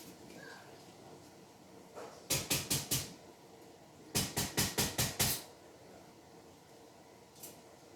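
Two quick runs of thumps, four and then six, at about five a second.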